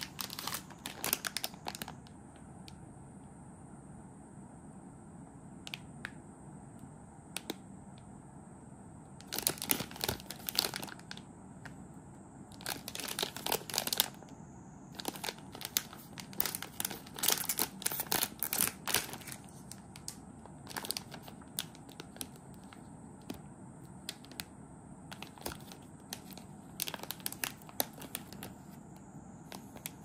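Packaging of a Kinoko no Yama chocolate snack being opened and handled: crinkling and tearing in about six bursts of rustling, with quiet pauses between them.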